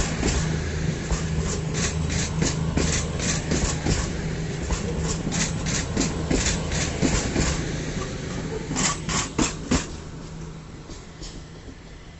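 Diesel train moving along the track: wheels clicking over rail joints in an uneven run of knocks over a steady engine hum, with a last group of clicks about three-quarters of the way in before the sound fades away.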